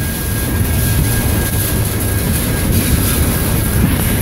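Freight train cars rolling past close by: a steady rumble of steel wheels on the rails, with a hiss of rain over it.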